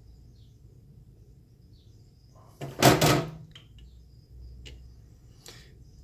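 Handling noise from a coil of copper speaker wire being worked by hand, with one loud, short rustling burst about three seconds in and a few light clicks after it.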